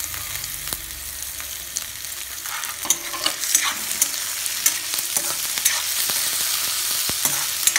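Chopped onions, capsicum and tomatoes sizzling in hot oil in a kadhai while a steel spoon stirs them, with frequent clinks and scrapes of the spoon against the pan.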